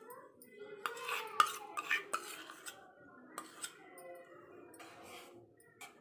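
Steel spoon scraping and clinking against a stainless-steel bowl while scooping out soft ghee, with a quick cluster of sharp clinks about a second in, two more in the middle and one near the end.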